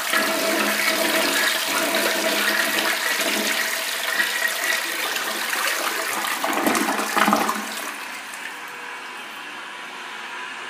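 Crane Plumbing Galaxy toilet flushing: water rushing and swirling down the bowl, with a louder surge about seven seconds in. Then the flush ends and the sound drops to a steady, quieter hiss as the tank refills.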